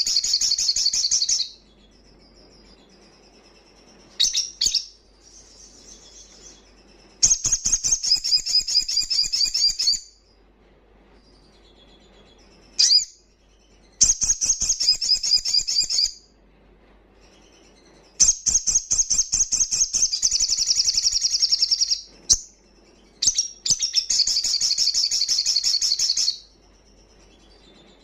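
Male olive-backed sunbird singing loud, fast, high trilled phrases of two to four seconds each, about five times, with short sharp chips and a soft twitter in the pauses between them.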